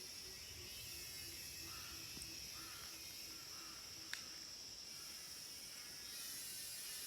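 Steady high-pitched drone of cicadas, with a few short bird calls in the middle and a low note repeated about three times a second through the first half. There is a single sharp click about four seconds in.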